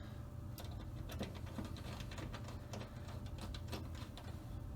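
Small screwdriver driving tiny screws into a TV's replacement T-Con circuit board: a run of faint, irregular ticks and clicks over a low steady hum.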